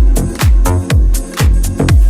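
Electronic dance music with a steady kick drum, about two beats a second, and hi-hats between the beats.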